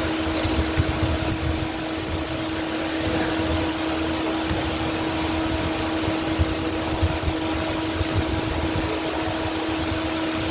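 Steady hum of a large fan with a constant low tone, filling a big gym, with a few short knocks and squeaks from the ball and the players' shoes on the hardwood court in the second half.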